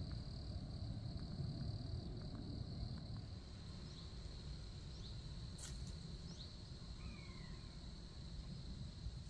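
An insect trilling in one steady high tone over a low outdoor rumble; the trill stops just before the end. A few faint short bird chirps come partway through.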